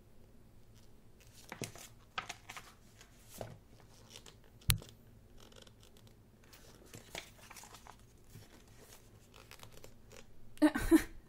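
Pages of a thick photo book being turned, paper swishing and rustling several times, with one sharp tap about five seconds in. A brief voice comes in near the end.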